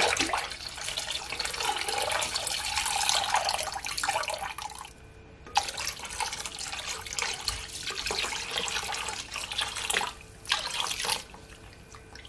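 Water poured in a stream into a glass bowl of lemon juice, splashing and gurgling as it fills, in two long pours with a short pause about five seconds in, and a brief splash near the end.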